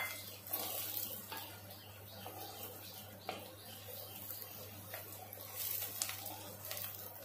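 Chopped onions, garlic and ginger sizzling faintly in oil in a clay pot, stirred with a wooden spoon that scrapes and knocks against the pot a few times.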